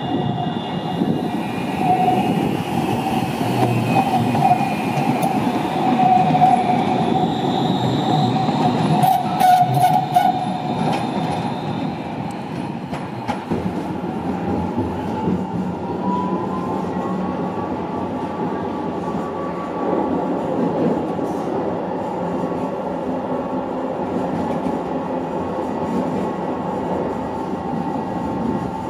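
Alstom Citadis low-floor tram running on curved track, its wheels squealing with a wavering high tone, and a few sharp clicks about ten seconds in. About halfway the sound changes to inside a moving tram: the running rumble, with the electric motor's whine rising in pitch as it speeds up and then holding steady.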